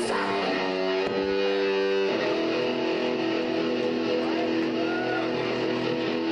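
Live band music led by electric guitar, playing held, ringing chords, with a change of chord about two seconds in.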